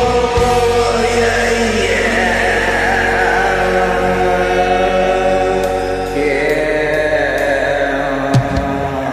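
Karaoke music with long held notes and slow falling glides, about two seconds in and again about six seconds in.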